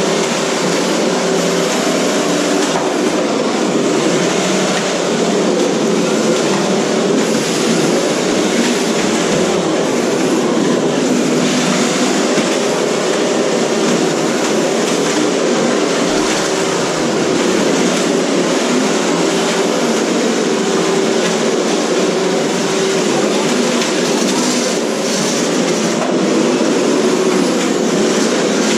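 Several 1/10-scale RC cars running at once in a derby: a steady mix of motor whine and rolling, scraping noise with no single loud crash standing out.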